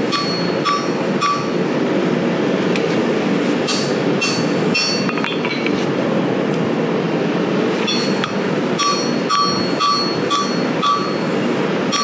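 Hand hammer striking a red-hot 1085 steel knife blank against the horn of an anvil, each blow ringing. A few quick blows at the start, a stretch of several seconds with only scattered strikes, then steady hammering at about two to three blows a second from about nine seconds in, bending the blade into its preform.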